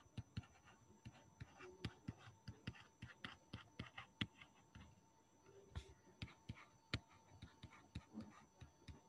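Stylus tapping and scratching on a tablet while writing by hand: faint, irregular short clicks and strokes, several a second.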